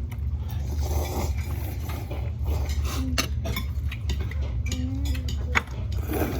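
Chopsticks and utensils clicking and clinking against dishes while eating, a scattering of sharp irregular clicks over a steady low hum.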